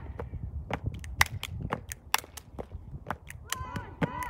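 Hand slaps and boot stomps of an unarmed exhibition drill routine: a string of sharp, irregularly spaced cracks and smacks, about two to three a second.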